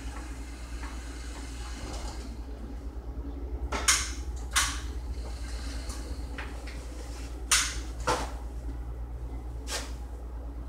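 Several sharp knocks and clicks of household handling, about five spread from a few seconds in to near the end, over a steady low hum.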